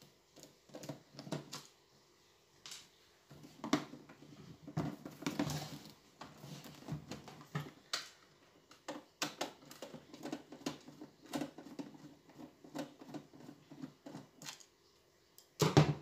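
Irregular clicks and knocks of a screwdriver and hands working on a hard plastic stereo cabinet as it is tipped and handled, with a louder knock near the end.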